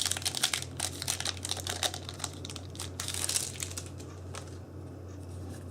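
Yu-Gi-Oh trading cards and foil booster-pack wrappers being handled: a dense run of crinkling and small clicks for about three and a half seconds, then quieter, over a steady low electrical hum.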